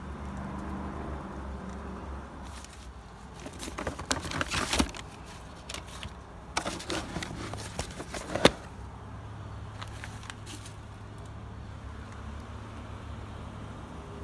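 45 rpm vinyl records being flipped through in a plastic tote, giving two bursts of sharp clicks and clatter about three and seven seconds in. A steady low hum runs underneath.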